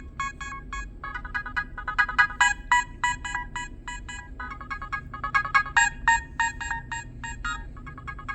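Nokia 6010 mobile phone playing one of its preloaded ringtones through its built-in speaker: a fast, bright electronic melody of short, clipped notes, several a second.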